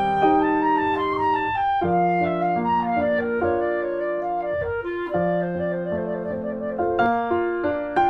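Instrumental background music: a melody of long held notes over piano, with struck piano notes coming in more strongly near the end.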